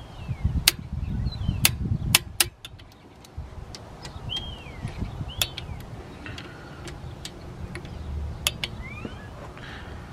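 Socket ratchet on the crankshaft bolt of a 3.5L V6 being swung to turn the engine over by hand, giving sharp single metallic clicks at uneven intervals.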